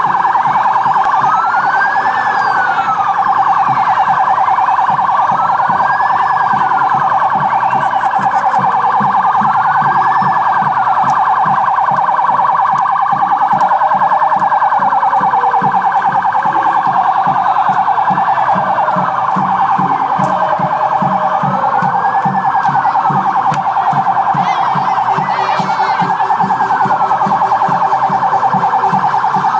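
A siren wailing slowly up and down, one rise and fall about every four seconds, over a loud, dense, steady blare and a rapid low pulsing.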